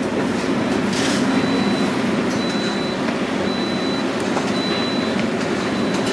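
Steady loud drone of kitchen machinery, with a short high beep repeating about once a second.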